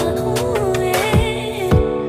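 Background music: a gliding melody over sustained chords and a beat, with deep kick drum hits.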